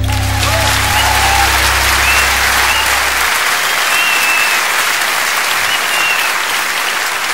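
Concert audience applauding and cheering, with a few whistles, at the end of a song. A low note from the band holds under the applause and stops about three seconds in.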